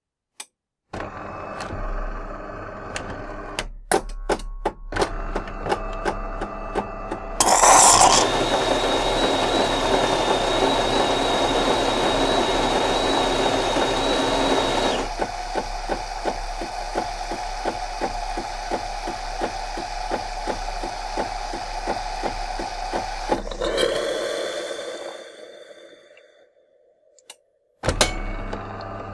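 DeLonghi ESAM 4500 automatic coffee machine, in its original unmodified state, running through a cappuccino cycle. It starts with motor and pump sounds and clicks, a loud hiss about seven seconds in, then a steady run with a high whistling tone while it froths milk into the cup, then a rapid pulsing; it stops briefly and starts again near the end.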